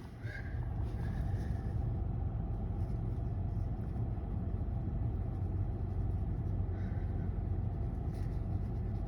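Steady low background rumble, with a few faint, brief soft sounds now and then.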